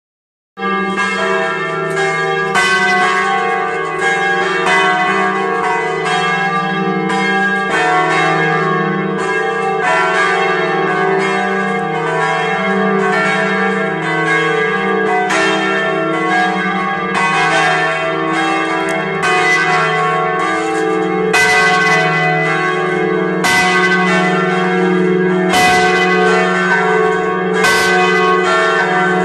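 The church bells of St. Stanislaus in Vilnius ringing in a full peal: several large swinging bells struck over and over, their strokes overlapping into a continuous ringing that starts suddenly about half a second in.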